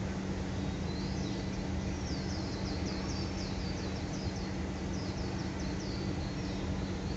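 A bird singing a run of quick, high chirps, starting about a second in and stopping near the end, over a steady low hum and outdoor background noise.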